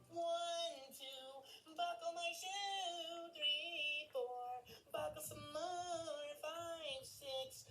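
A high-pitched singing voice with a wavering, gliding melody in short phrases, heard as music.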